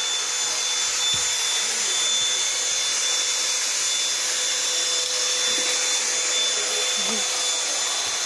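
Electric vacuum cleaner running steadily: a constant whooshing motor noise with a thin, high steady whine.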